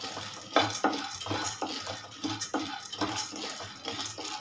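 A wooden spatula stirring dry split roasted gram dal (putnala pappu) in a nonstick kadai with no oil, scraping across the pan and knocking against it several times at uneven intervals while the dal rattles around the pan.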